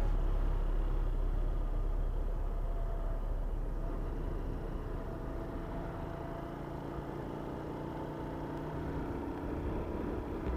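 Keeway Superlight 125 motorcycle engine running steadily while riding, with wind and road noise. The engine sound eases a little in the middle and picks up again near the end.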